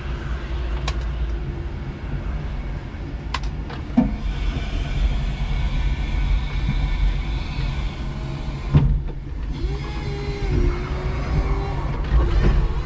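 A 5-ton electric forklift truck running, with a steady low hum from its motors. A higher whine, typical of the hydraulic pump, runs from about four to eight seconds while the forks work at a plywood crate. A few sharp knocks and a thump are heard, the loudest about nine seconds in.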